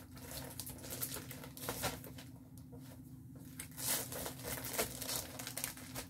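Paper and packaging rustling and crinkling as they are handled, in short irregular rustles, loudest about four seconds in.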